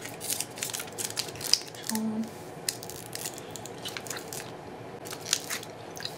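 A plastic beef-stick wrapper crinkling and rustling in hand, a scatter of small crackles and clicks, with a brief hummed "mm" about two seconds in.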